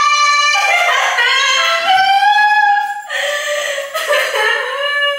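A woman wailing loudly in long, high-pitched cries, with a break about three seconds in before the next wail starts: put-on crying, staged as if she had just been attacked.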